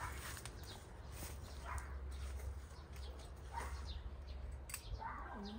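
A dog whimpering faintly in short yips, a few times, over a steady low background hum.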